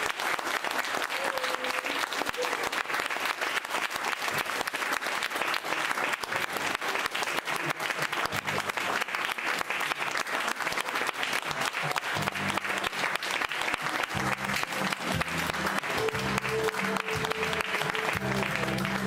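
A crowd of guests applauding steadily for the couple's wedding waltz. About eight seconds in, new music with a low, repeating bass line starts up under the clapping and grows stronger toward the end.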